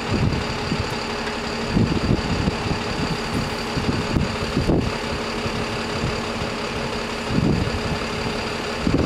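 An engine idling steadily, a continuous hum, with irregular low rumbles now and then.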